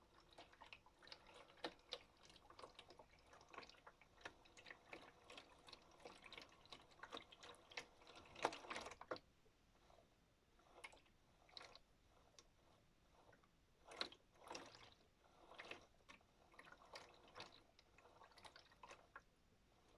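Water sloshing and dripping inside a modified Miele W1 toy washing machine's drum during a wash, as faint irregular small splashes and clicks. They are dense for the first nine seconds or so, then come in sparser bursts.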